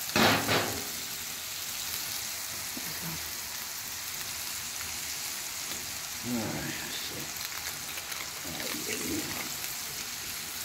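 Burger patties frying on a flat-top griddle: a steady sizzle.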